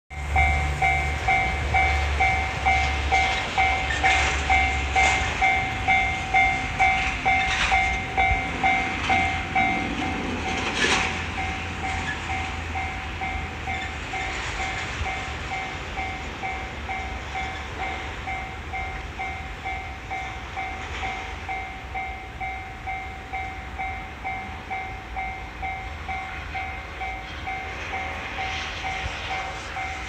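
Japanese level-crossing warning bell ringing its electronic 'kan-kan' ding about twice a second, with a two-pitch tone. The bell turns quieter about ten seconds in, and a few sharp knocks fall before and around that point.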